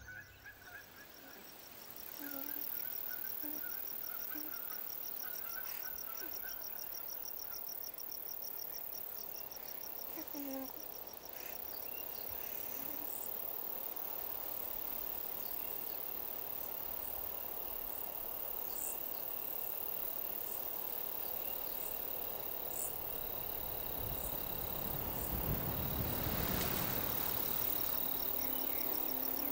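Insects chirping in a fast, even pulsing trill over a steady high hiss; the trill fades out about twelve seconds in while the hiss goes on.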